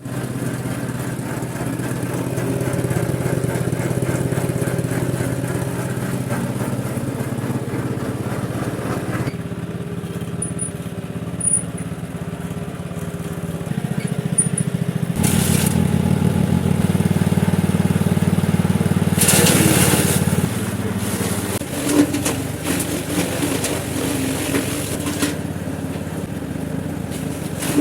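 Homemade animal-feed chopper machine running with a steady mechanical hum. Its note shifts about a third of the way in and again about halfway, with louder noisy stretches around the middle and about two-thirds through.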